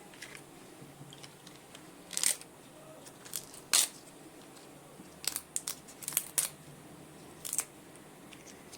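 Fresh guava leaves being torn by hand: a scattered series of short, crisp rips and snaps, about eight in all.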